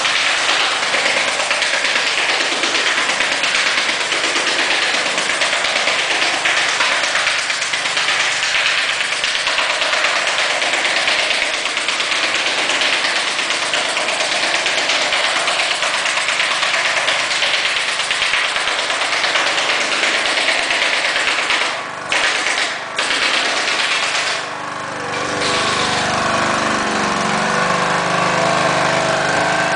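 Air compressor running steadily to feed a pneumatic stapler's air hose. The noise drops out briefly a few times after about 22 seconds, then carries on with a lower, steadier machine hum.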